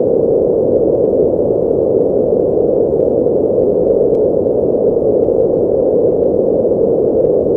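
Strong wind sound effect from anime: a steady, dull rushing noise of wind, even in strength throughout.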